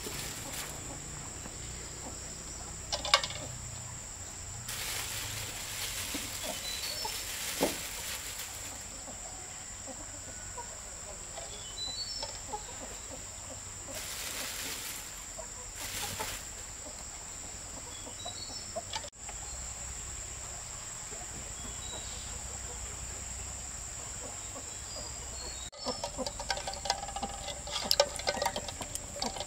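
Chickens clucking, with scattered short high bird chirps and a steady high-pitched tone; the clucking gets busier near the end.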